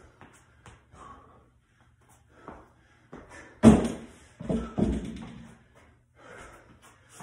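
Burpee box jump-over: feet land hard on a plywood plyo box with a loud thud about three and a half seconds in, then two more thuds follow as the jumper comes down onto the concrete floor. Fainter scuffs and knocks come from the burpee before it.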